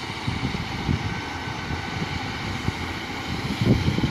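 Class 150 Sprinter diesel multiple unit approaching slowly along the platform, its underfloor diesel engines running, with irregular low thumps through it.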